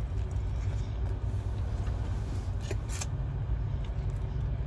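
Steady low rumble of an idling vehicle engine heard from inside the cab, with a brief click about three seconds in.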